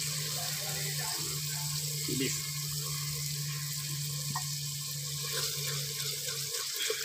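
Tomato-onion masala sizzling and simmering in a clay handi, a steady hiss, with a wooden spoon stirring and sliced green chillies going in. A steady low hum runs under it and stops near the end.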